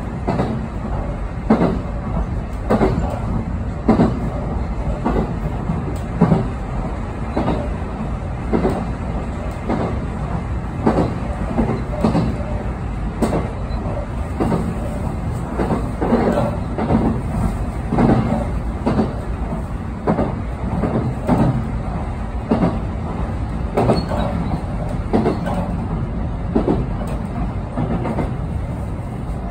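Electric train running along single track, heard from inside the car: a steady rumble of the running gear with wheels clicking over rail joints about once a second.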